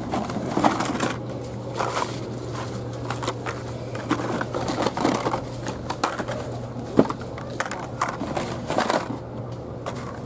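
Blister-packed Hot Wheels cards being flipped through and pulled from a plastic tub: irregular clicks, taps and rustles of card and plastic packaging, over a steady low hum.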